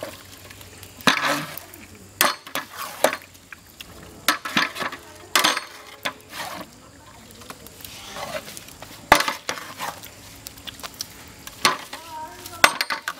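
Long-handled metal spatula stirring and scraping in a large metal cooking pot of curry, with irregular clanks and knocks against the pot's sides and a light sizzle from the frying food.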